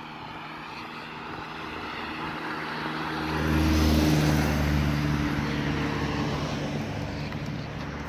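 Engine drone of something passing, swelling to a peak about four seconds in, then fading slowly.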